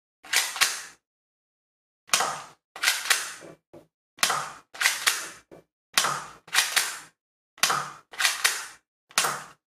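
Cybergun Smith & Wesson M&P9c spring-powered airsoft pistol being cocked by hand and fired over and over: about ten sharp plastic snaps and clacks at uneven intervals, some in quick pairs.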